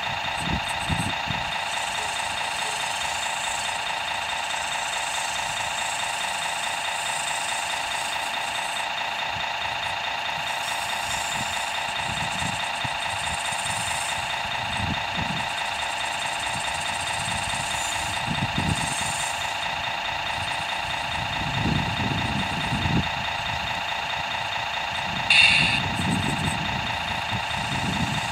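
RC model's sound module playing a diesel engine idle through a small speaker: a steady drone with no low end. Low rumbles come and go, and near the end there is one short, sharp burst.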